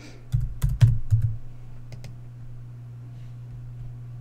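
Computer keyboard keys tapped four or five times in the first second and a half as a password is typed, then only a steady low hum.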